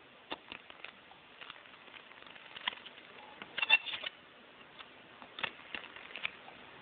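Home-built one-tube ECC86 regenerative shortwave receiver putting out a faint steady hiss with irregular crackles and clicks, with no station voice coming through; a louder cluster of crackles comes about three and a half seconds in.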